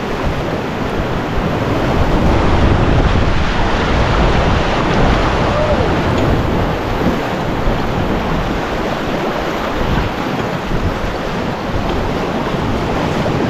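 Rushing whitewater of a river rapid around a drifting raft, steady throughout, with wind buffeting the microphone.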